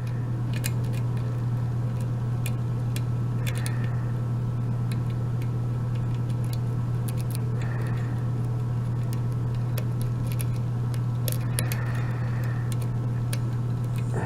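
Light, irregular metallic clicks and scrapes of a lock pick and tension wrench working the pin stack of a Sargent mortise cylinder during single-pin picking, over a steady low hum.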